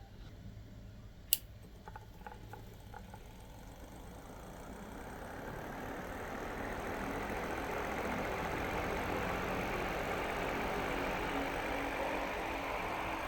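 A sharp click, then a homemade battery-powered fan's small motor whirring, its noise building over a few seconds to a steady level.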